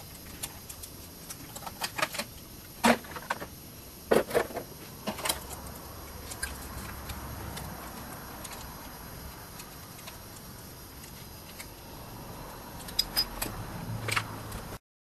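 Irregular clicks and knocks of hand tools and hard plastic body panels being handled while the panels are taken off a small motorbike, some in quick clusters. The sound cuts off abruptly near the end.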